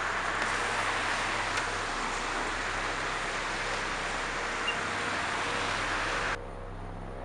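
Steady hiss of outdoor background noise that cuts off suddenly about six seconds in.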